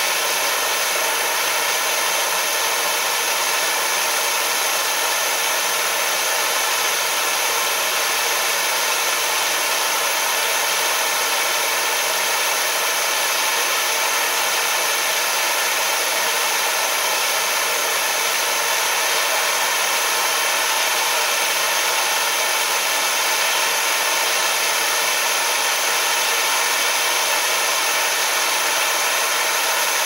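Handheld gas torch burning with a steady hiss, its flame held on a padlock's steel shackle to heat it.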